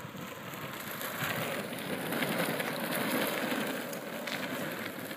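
Longboard's urethane wheels rolling over the asphalt street: a steady rolling hiss that grows louder in the middle and eases off toward the end.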